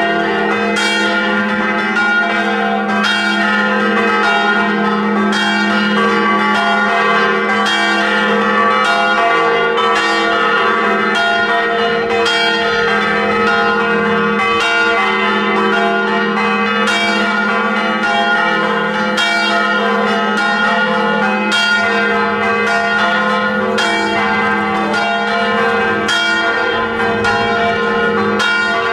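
Church bells ringing a continuous peal, stroke after stroke with the tones overlapping and sustaining, at an even level throughout.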